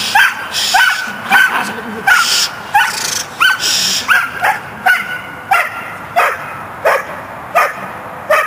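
Belgian Malinois barking at a helper during protection training: a steady run of sharp barks, a little under two a second, each dropping in pitch.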